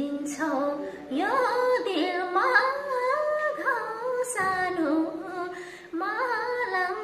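A woman singing a Nepali folk melody solo: long held notes with ornamented bends, in phrases broken by short breaths about a second in, past the middle, and near the end.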